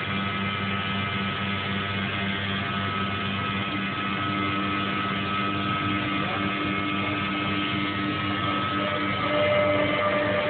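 Weeke Optimat BHP 200 CNC router running, its head moving along the gantry over the table: a steady machine hum with several steady whining tones. An on-and-off tone comes in about four seconds in, and a higher tone near the end as it gets a little louder.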